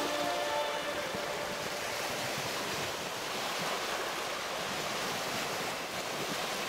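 Winter lake surf: waves carrying slush and broken ice wash onto a sandy shore, making a steady, even wash. Background music fades out within the first second.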